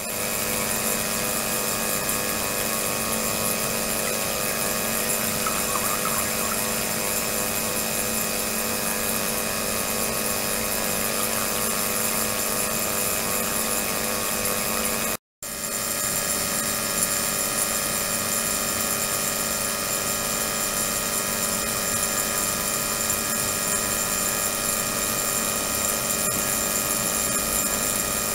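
Ultrasonic system (72 kHz, 300 W) running in a water-filled plastic resin container: a steady hiss of cavitating water with many fixed tones from low to high. It drops out for a moment about halfway through.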